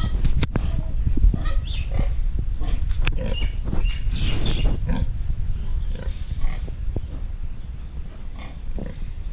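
Pig grunting repeatedly, in low rough snorts, with short clicks and knocks mixed in.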